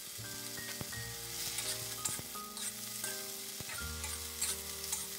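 Cauliflower florets sizzling in hot oil in a stainless-steel wok, with a little water added to steam them soft, stirred now and then with a metal spatula. Soft background music with held notes runs underneath.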